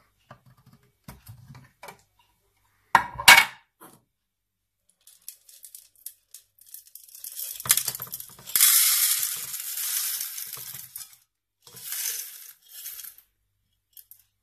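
Whole coffee beans poured from a metal tin into the clear bean hopper of a De'Longhi KG79 burr grinder: a rattling rush about seven seconds in lasting some four seconds, then a shorter pour near the end. Earlier there are a few light clicks and one sharp knock about three seconds in.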